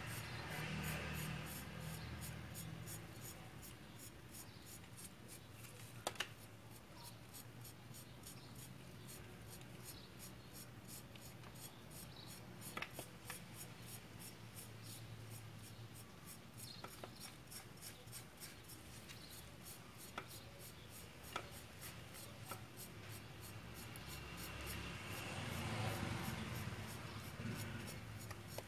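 Knife blade scratching lines into wet cement mortar: faint, steady scraping with a few sharp clicks, louder for a couple of seconds near the end.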